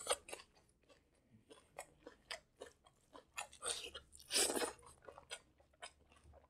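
Close-miked mouth sounds of someone eating rice and curry with the hand: wet chewing, lip smacks and clicks, with a louder burst of chewing about four and a half seconds in.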